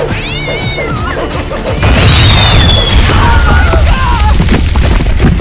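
Background music overlaid with sound effects: squeaky gliding tones in the first second, then a sudden loud crash about two seconds in that holds on into a loud rumbling stretch.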